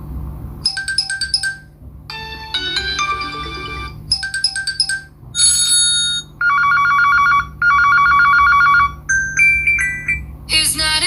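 Ringtones playing from a Huawei Y5 2017 smartphone's loudspeaker, a different short electronic melody every second or two with brief breaks between them, as when ringtones are previewed one after another. A steady low hum runs underneath.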